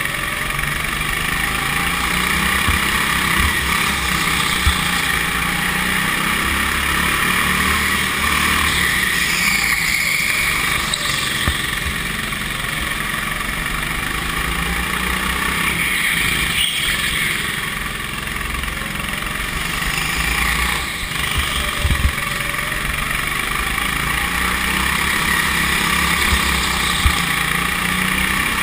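Go-kart engine running steadily, heard from a camera mounted on the kart, with engine speed rising and falling a few times and a steady rush of wind and tyre noise. A few brief thumps stand out.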